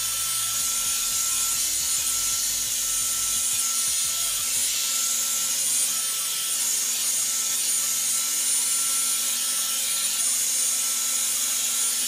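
Revlon One-Step hair dryer and volumizer running steadily on its low heat setting: an even rush of air with a faint high whine.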